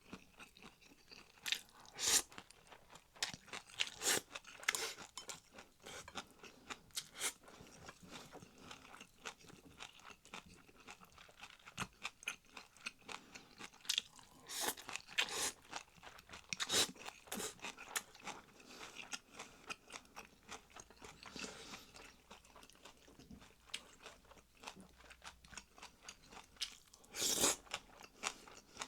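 Close-miked chewing and crunching of a mouthful of food, with irregular sharp crunches. The louder ones come a couple of seconds in, around the middle, and near the end.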